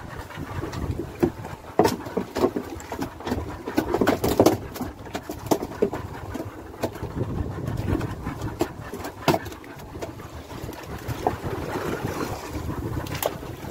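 Low rumble of a small fishing boat on open water, with many irregular knocks and clicks from a hand line and a caught fish being handled on deck. The knocks come thickest about four seconds in.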